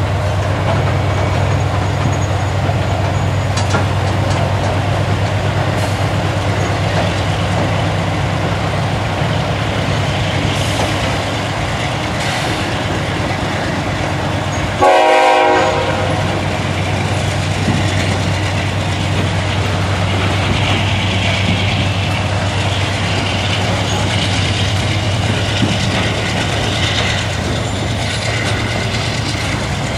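GE diesel freight locomotives (CSX ES40DC and C40-9W) working under load as the train restarts, their engines humming steadily and the rail cars rolling behind. About halfway through, a single short horn blast of about a second sounds from a Nathan K5HLL five-chime horn.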